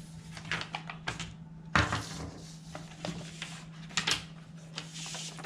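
A handful of light clicks and knocks, the loudest about two seconds in, over a steady low hum.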